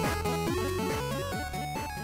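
Background music with a steady beat and a bright melody, beginning to fade out near the end.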